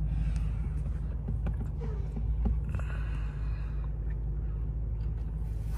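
Low steady rumble inside a Mercedes-Benz S580's cabin, stopped in traffic, with a few faint clicks.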